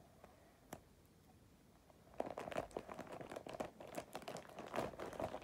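Wrapping paper crinkling and rustling as it is folded around a present, starting about two seconds in after one soft click.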